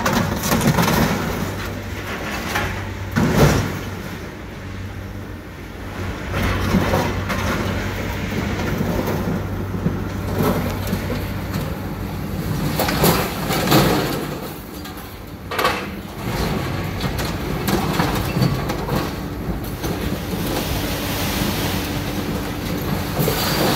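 A scrap-yard material handler's grapple tearing and crushing the steel body of an armored truck: grinding, screeching metal with several loud crashes about 3 s in and again near 13 and 15 seconds in, over the steady hum of the machine's engine.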